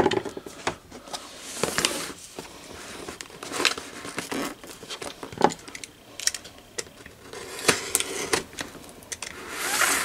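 Utility knife cutting and scraping at the seal sticker on a cardboard power-supply box, with the cardboard rubbing and tapping as the box is handled. Irregular scratchy scrapes and light clicks, with longer hissing scrapes about two seconds in and again near the end.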